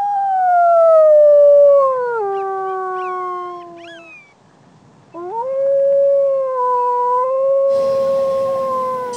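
Coyote howling: two long howls. The first rises, then slides down, with a few short high yips near its end. The second rises, holds steady and fades off at the end.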